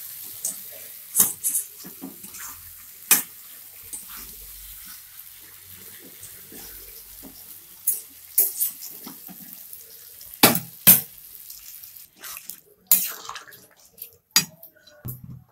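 Spiced jackfruit and potatoes sizzling in oil in a metal kadai, with sharp metal clinks against the pan every few seconds. Water is poured into the hot pan, and the hiss stops about three-quarters of the way through.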